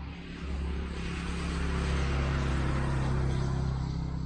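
A motor vehicle passing close by: engine hum and tyre noise swell to a peak about halfway through, then begin to fade.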